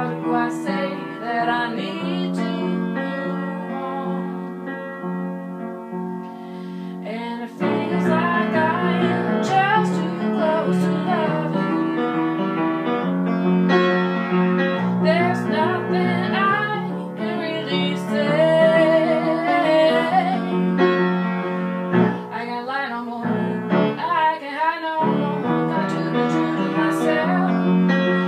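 Upright piano played with a woman singing over it. For the first several seconds the piano holds chords on its own, then about seven seconds in the playing gets louder and her voice comes in over it.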